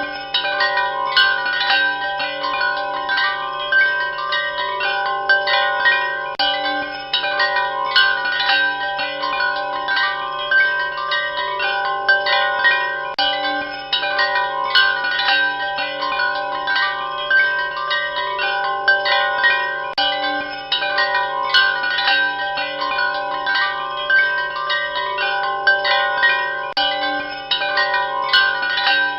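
Wind chimes ringing continuously: many overlapping, irregular strikes of several held, ringing tones.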